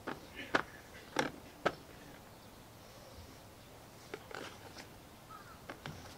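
Kitchen knife cutting up a raw whole duck on a cutting board: sharp knocks of the blade, three about half a second apart in the first two seconds, then a few more around four and six seconds in.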